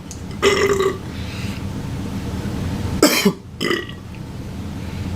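A man burping: a short burp about half a second in, then a louder burp about three seconds in that starts suddenly and falls in pitch, trailing into a shorter one.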